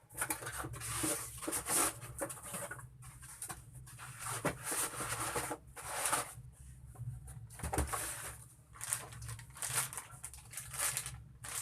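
Rustling and handling of packaging as laptop box contents are put back, in irregular bursts with short pauses.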